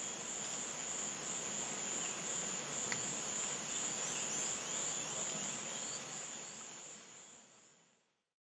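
Steady high-pitched chorus of insects chirring, with a fast pulsing trill over a continuous whine. It fades out to silence near the end.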